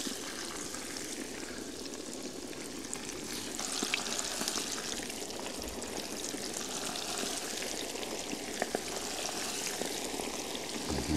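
Battered zander pieces deep-frying in hot oil in a kazan: a steady sizzle with fine crackles, getting louder about three and a half seconds in.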